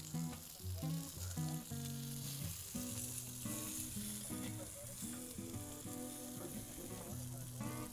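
Bacon and boneless chicken thighs sizzling on a hot griddle pan over a charcoal grill, with a steady hiss. Metal tongs move and turn the pieces.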